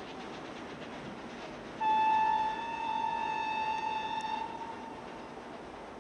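A train whistle blows one long steady note for about two and a half seconds, loudest at its start, over the steady running noise of a train on the move.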